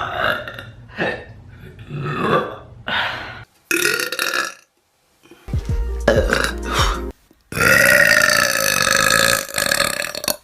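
A string of loud burps, one after another, from a run of different people. It ends in one long, drawn-out belch about seven and a half seconds in, the loudest of them.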